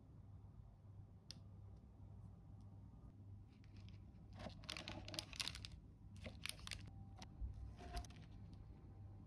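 A knife cutting through soft melted white chocolate cheesecake and its crumb crust. It makes a few short spells of soft crackling and scraping, mostly in the second half, over a faint steady hum.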